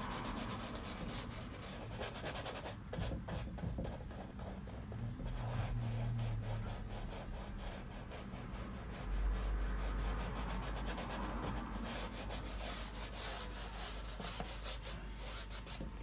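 Bristle paintbrush scrubbing oil paint across a canvas in rapid back-and-forth strokes, easing off briefly a few seconds in. A low steady hum comes in about halfway.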